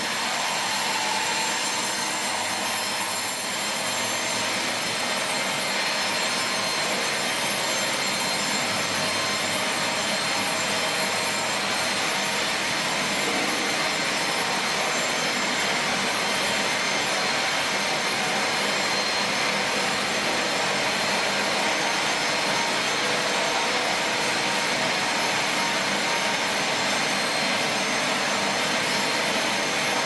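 Large vertical band saw sawing lengthwise through a big log as the carriage feeds it past the blade: a steady mechanical sawing noise with a high, even ring.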